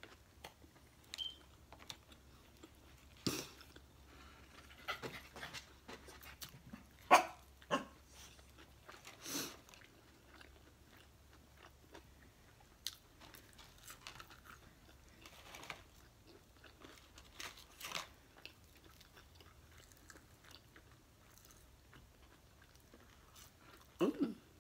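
Close-miked eating: a McDonald's Quarter Pounder Deluxe bitten into, then fries chewed, with scattered wet mouth clicks and smacks.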